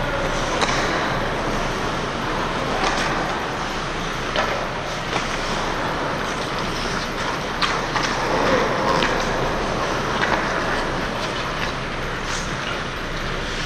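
Hockey game play: a steady rushing noise with scattered sharp clacks of sticks and puck.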